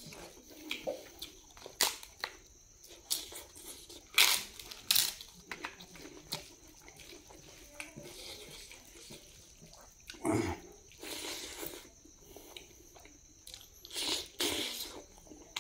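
Eating by hand: fingers mixing rice on a plate, and chewing, heard as irregular crunches and clicks, with louder ones several times.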